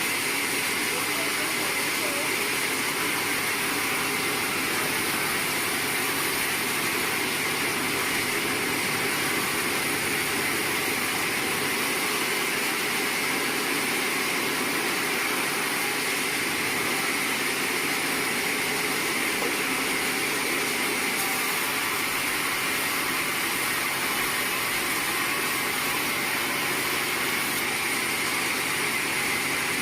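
Sawmill machinery running with a steady, unchanging noise.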